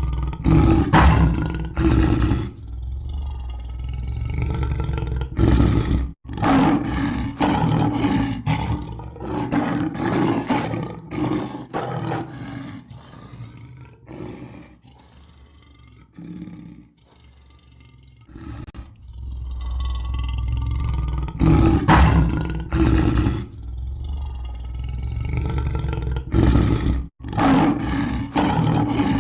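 Lion roaring: long, deep roars followed by runs of short, clipped calls, with a quieter stretch in between. The same roaring sequence seems to start over about two-thirds of the way through.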